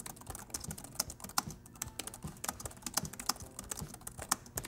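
Typing on the Hyundai HyBook 14-inch laptop's keyboard: a quick, irregular run of key clicks.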